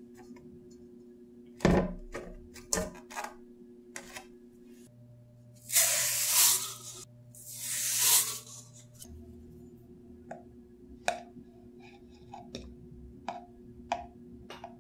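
Granulated sugar poured from a paper cup into an aluminium pot: two rushing, hissing pours, each a little over a second long, about six and eight seconds in. Before them there is a sharp knock on the pot with a few lighter taps, and after them light clicks and taps of handling.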